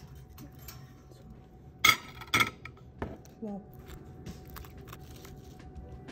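Kitchen clatter of dishes and cutlery: two sharp, ringing clinks about two seconds in, followed by a few lighter clicks.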